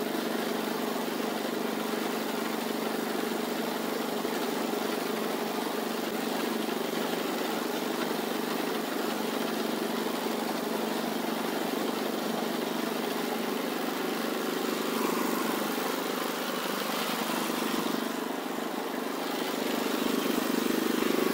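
Small petrol engine of a walk-behind cultivator running steadily under load as it tills a furrow, with a brief dip in level near the end.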